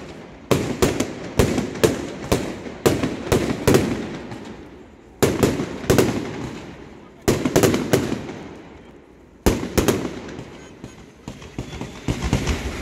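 Fireworks salute: a rapid string of sharp bangs from bursting shells for the first few seconds, then three more volleys of a few bangs each about two seconds apart, each trailing off into echo.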